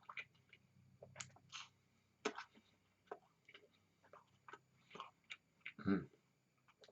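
Close-up chewing of a piece of soft, bready toast: faint, irregular mouth clicks and smacks, with a louder one about two seconds in and another near the end.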